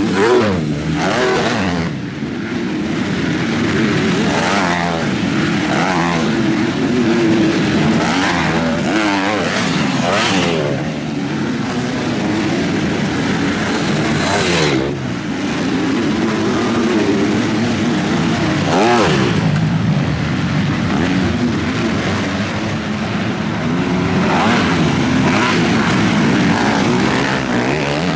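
Several motocross dirt bikes racing, engines revving up and down as they pass close by one after another, over the steady sound of more bikes running around the track.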